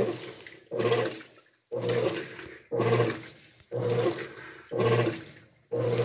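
GE belt-drive top-load washing machine agitating a load of clothes in water. The water and clothes churn in a regular surge about once a second as the agitator strokes back and forth, each surge carrying a low hum from the drive. The machine is agitating normally, doing a pretty good job.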